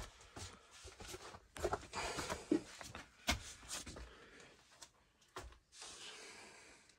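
Scattered rustles, crunches and knocks of someone moving about and handling things among trash and clutter, with a handful of sharper knocks standing out.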